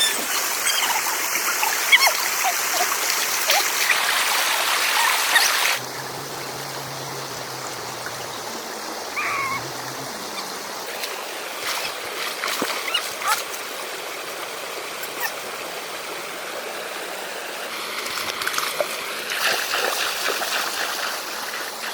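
River water flowing and splashing, loud for the first six seconds, then cutting abruptly to a quieter run of water with scattered small splashes and clicks that grows louder again near the end.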